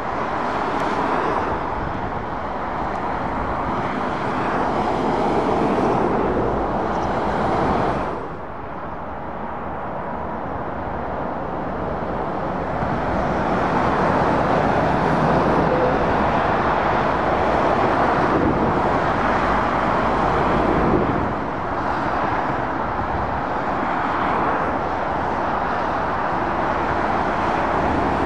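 Motorway traffic: lorries and cars passing at speed, a steady rush of tyre and engine noise that swells and eases as vehicles go by. The noise drops abruptly about eight seconds in, then builds again.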